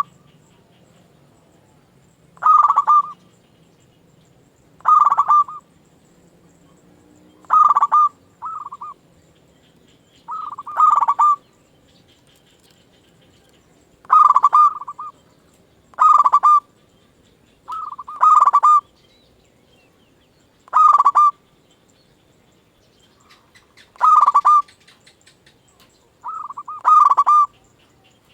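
Zebra dove (perkutut) cooing: short, rolling coo phrases repeated every two to three seconds, some coming in quick pairs.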